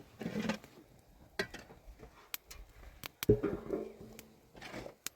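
Scattered clicks and knocks of objects being handled, with a louder knock about three seconds in that rings briefly.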